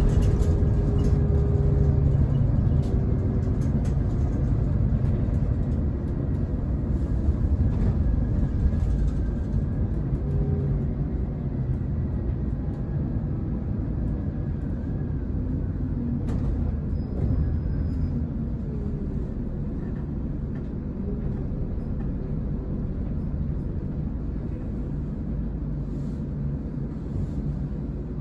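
Scania K410EB coach's six-cylinder diesel and road rumble heard from inside the cabin while under way, the engine note shifting now and then and the whole sound getting gradually quieter as the coach slows.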